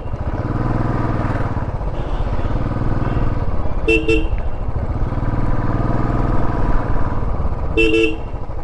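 Royal Enfield Classic 500's single-cylinder engine running as the bike rides along, with two short horn beeps, one about four seconds in and one near the end.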